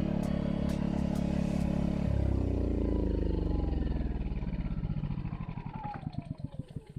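Ryobi 1800-running-watt inverter generator engine running steadily, then shut off about two seconds in: it winds down, its pitch falling and the firing slowing into separate chugs that die away near the end.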